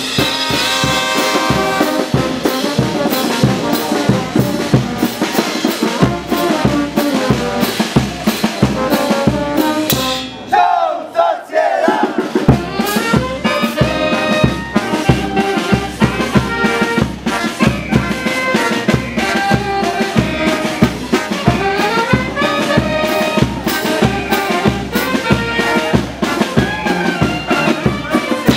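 Brass band playing live: trumpets, trombones and sousaphones over snare drum, bass drum and cymbals keeping a steady beat about twice a second. About ten seconds in the drums drop out for a couple of seconds, leaving the brass alone, then come back in.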